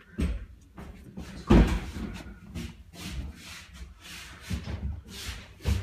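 Several knocks and thumps, the loudest about a second and a half in, with rustling between, like a toilet cubicle door being shut and bumped.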